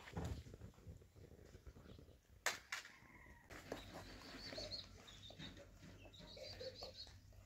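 Faint chickens in the background, with repeated high chirping through the second half and two sharp knocks about two and a half seconds in.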